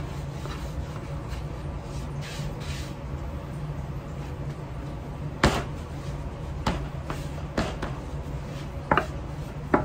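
Thin wooden rolling pin rolling out pancake dough on a floured wooden board, with several sharp wooden knocks from about halfway through, the first the loudest, as the pin and hands hit the board. A steady low hum runs underneath.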